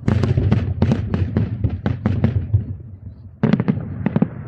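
Aerial fireworks shells bursting in a rapid volley of sharp bangs, about a dozen in the first two and a half seconds. After a short lull comes a second quick cluster of bangs.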